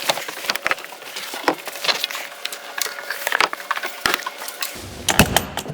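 A quick, irregular series of clicks, taps and knocks as the hard-side camper's door clamp, latches and wall panels are handled during teardown, with a few heavier knocks about five seconds in.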